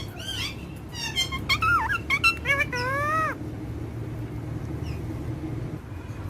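Parrot vocalising in a run of short, swooping pitched calls for about three seconds, cat-like enough that they resemble meows, then stopping, leaving a low background rumble.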